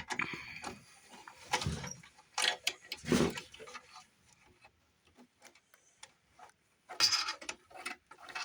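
Small irregular clicks, taps and scrapes of hands working a jumper wire onto a siren timer's terminal screw, with a few louder handling knocks and rustles.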